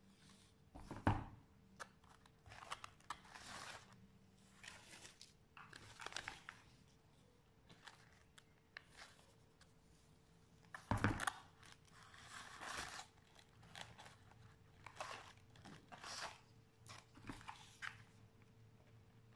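Faint, irregular rustling and crinkling of hands working lace ribbon and glitter foam on a plastic-covered table, with two sharper knocks, one about a second in and one around eleven seconds.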